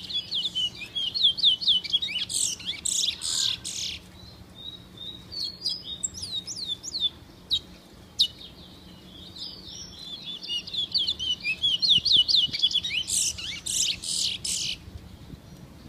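Songbird song: fast runs of sharp, high, downward-sliding chirps in two long bursts, one at the start and one from about ten seconds in, with scattered notes between.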